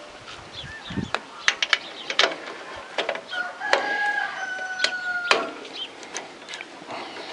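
Hand tools working bolts on a walk-behind tractor's metal cover: irregular ratchet clicks and sharp metal knocks. A long held call sounds in the background for about two seconds midway.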